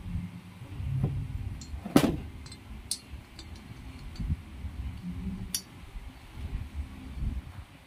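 Scattered light metallic clicks and taps of small steel screws and pins handled against an aluminium motorcycle cylinder head during reassembly, with one sharper knock about two seconds in. A low rumble runs underneath.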